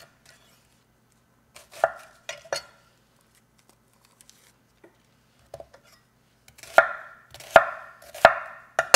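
Santoku-style chef's knife chopping through an onion and knocking on a wooden cutting board: a few knocks about two seconds in, a quiet stretch, then four firm chops less than a second apart near the end.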